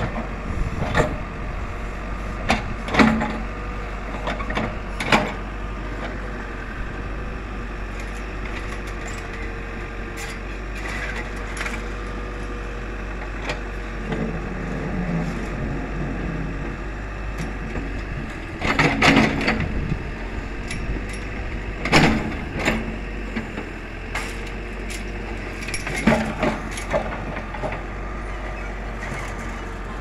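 Backhoe loader's diesel engine running steadily while its bucket digs out soil and old foundation. Sharp knocks and clanks from the digging come every few seconds, the loudest about two-thirds of the way through.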